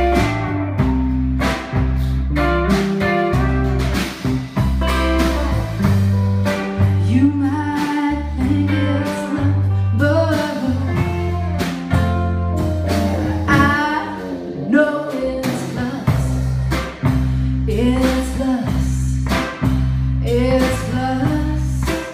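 Live rock band playing: two electric guitars over a drum kit and a low bass line, with guitar notes bending in pitch midway through.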